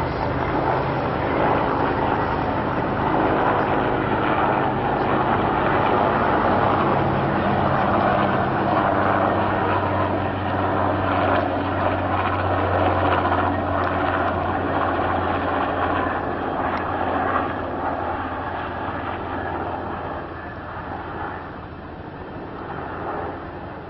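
Engine drone of a firefighting aircraft flying overhead, steady and fairly loud, then fading away over the last several seconds.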